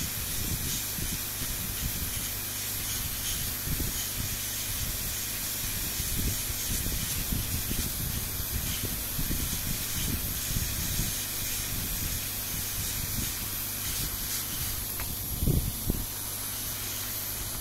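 Hot-air SMD rework station blowing a steady hiss of hot air onto a motherboard resistor, reflowing a joint suspected of being dry-soldered. A brief low bump about fifteen seconds in.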